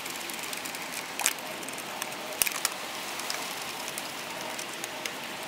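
Steady hiss with a few sharp metallic clicks of a socket wrench on the bolts of a battery module stack, one about a second in and a pair a little past the middle.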